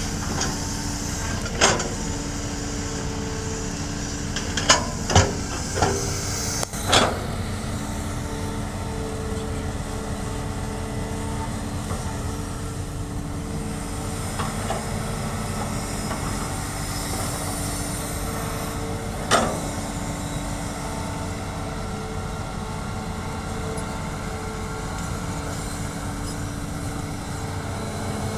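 Hitachi excavator running steadily as it digs and loads dirt into a dump truck, its engine a constant hum. Several sharp knocks come in the first seven seconds and one more about 19 seconds in.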